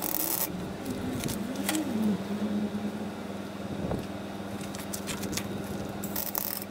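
MIG welder striking short tack welds on the steel repair panel of a Pinzgauer's front wing: a brief burst of arc crackle at the start and another near the end, with a steady low hum underneath.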